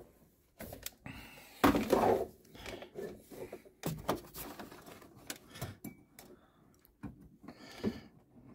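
Scattered knocks, clicks and rubbing of a hand and sleeve working among plastic parts and wiring behind a car's headlight housing while twisting the headlight bulb out of its socket. The loudest knock comes about two seconds in.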